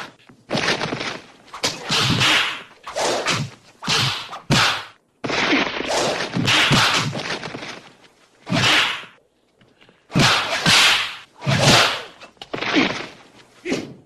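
Kung fu fight sound effects: a quick series of about a dozen sharp, whip-like swishes for punches and kicks, some ending in dull thuds, with short gaps between them.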